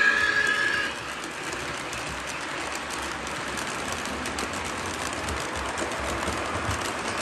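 Lionel Baby K4 model steam locomotive running on its track, a steady rumble with rapid fine clicking from the wheels and motor. A held whistle tone cuts off about a second in.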